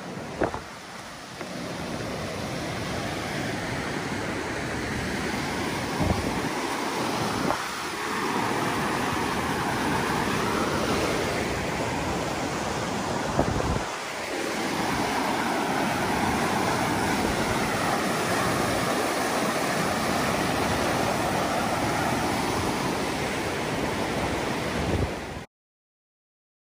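Fast-running river rushing steadily, with a few faint clicks; the sound cuts off suddenly near the end.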